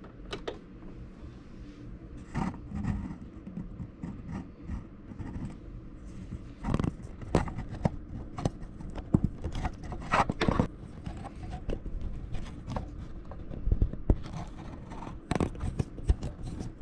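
Quilted cotton fabric being handled and shifted by hand: irregular rustling and scraping with light bumps, and no steady machine rhythm.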